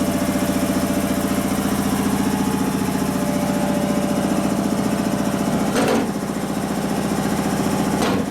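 A motor running steadily with a fast, even pulse, broken by two brief clicks, one about six seconds in and one near the end.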